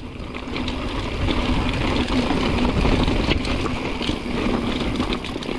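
Mountain bike riding down a rocky trail: steady wind rumble on the microphone with the tyres crunching and the bike rattling over rock and stones.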